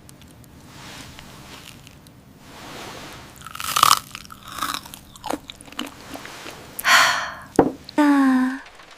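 Someone biting and chewing crunchy food, with loud crunches about four and seven seconds in, then a short falling hum near the end.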